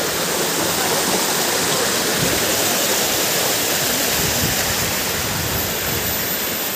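Steady rushing of a small rocky stream spilling over rocks in shallow cascades.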